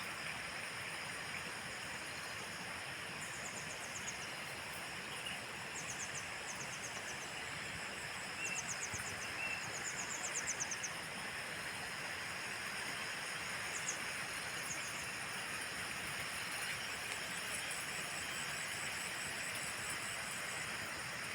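Outdoor nature ambience: a steady rush of flowing water, with very high, rapid trills repeating over it, the longest run near the end, and a couple of short chirps about eight and nine seconds in.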